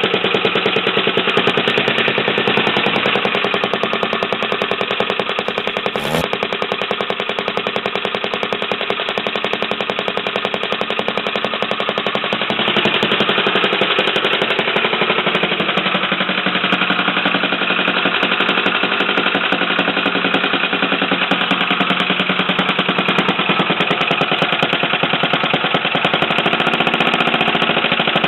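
Small pit-bike engine running at a steady high speed with a rapid, even pulsing exhaust. It gets a little louder about halfway through and shifts in pitch near the end.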